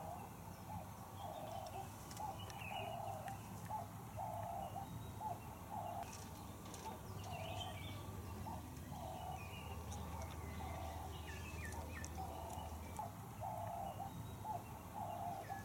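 Faint outdoor birdsong: scattered short high chirps over a low note that repeats about once a second.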